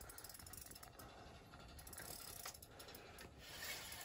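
Spinning fishing reel clicking rapidly and steadily, its gears ratcheting as a hooked fish is played through the ice hole.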